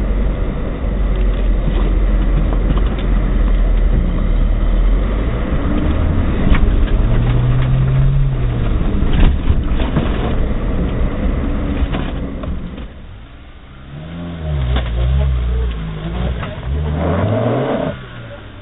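Suzuki Jimny off-roader engine running under load on a rough track, with knocks and rattles from the body and suspension. About two-thirds of the way through the sound drops, then a Jimny's engine revs up and down several times as it climbs a steep slope.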